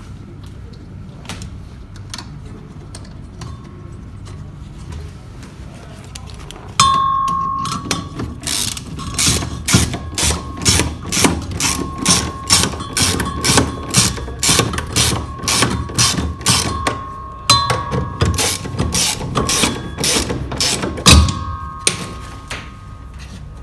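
Ratchet wrench clicking in quick runs of strokes, with a ringing metal tone, as bolts are worked on a washing machine's motor mounting. It starts about seven seconds in, and there is one sharp metal knock shortly before it stops.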